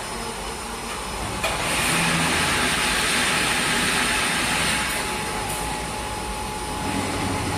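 Wire mesh welding machine running, a steady mechanical noise that turns suddenly louder about a second and a half in and eases back after about five seconds.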